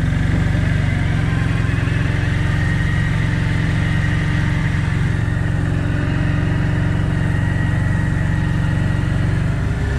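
Small petrol engine running steadily at a constant speed, with a fast, even pulsing low down.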